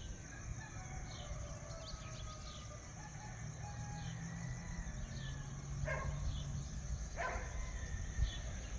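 Early-morning town ambience: small birds chirping on and off, with two louder sharp calls in the second half, faint far-off sliding calls, and a low hum of distant traffic.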